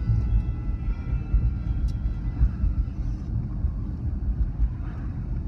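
Road and engine noise of a car driving, heard from inside the cabin: a steady low rumble.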